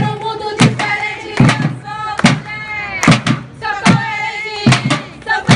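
Women singing a chant to a beat played on drums made from plastic barrels. The drums are struck hard, mostly in pairs of beats roughly every 0.8 seconds, under the voices.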